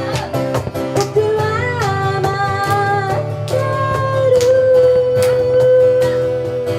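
A live pop song: a singer over strummed acoustic guitar. In the second half the voice holds one long note.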